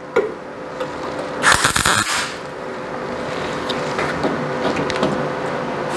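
MIG welder striking a short tack weld on a thin sheet-steel patch, the welder turned down in amps for the thin old metal: one crackling, sizzling arc burst of well under a second, about one and a half seconds in. A steady hum continues after it.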